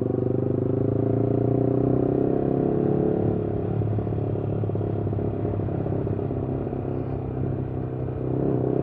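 Vehicle engine breathing through a Pro Liner muffler, running steadily at low revs while cruising slowly, with a deep, even exhaust drone that grows a little louder near the end.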